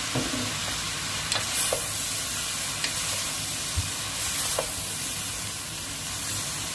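Vegetable chow mein sizzling in a wok as the egg noodles, cabbage and carrot are tossed and stirred: a steady frying hiss with a few light knocks and scrapes of the utensil on the pan.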